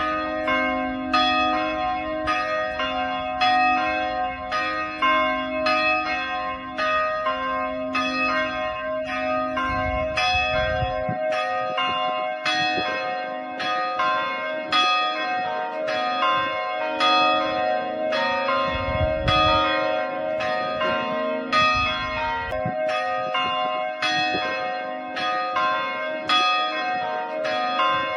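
Tower bells ringing, several bells struck in turn in a steady repeating sequence, about a stroke every half-second, each bell ringing on under the next.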